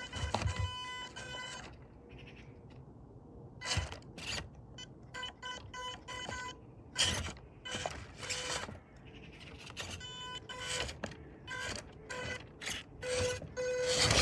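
Small electric drive motor of a toy remote-control off-road car whining at a steady pitch, stopping about two seconds in and starting again near the end. In between come irregular knocks and scrapes of the plastic car clambering over obstacles.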